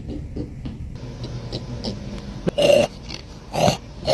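Short pig grunts and oinks, with the two loudest about two and a half and three and a half seconds in, over a low steady background hum.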